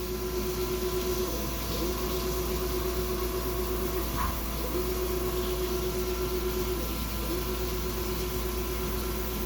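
CNC machine running its looped drilling cycle: a steady machine tone that breaks off briefly about every two seconds, four runs in all, over a constant hum.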